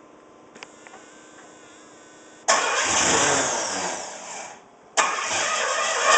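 A 301 engine with a rough idle starts, runs for about two seconds and fades out. It is started again a moment later and keeps running.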